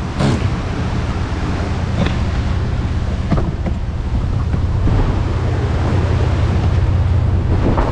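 Strong wind buffeting the microphone with a low, steady rumble, with a few light knocks.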